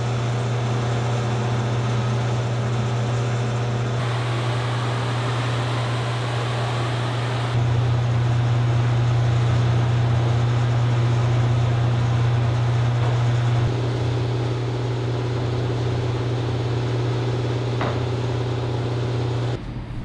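Industrial wide belt sander (SICAR Cometa 950) running with a coarse 30-grit belt while boards are fed through: a steady low hum under a loud rushing noise. The level steps up or down abruptly a few times.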